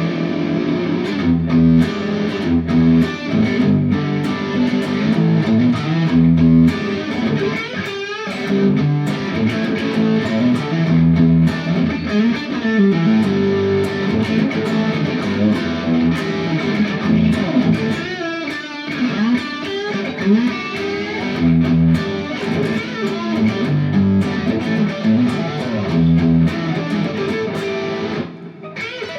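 Electric guitar played through a MOSFET distortion pedal (the Little Jim, built to sound like a cranked Marshall amp), playing distorted chords and riffs with a bright, aggressive crunch. The playing breaks off briefly near the end, then starts again.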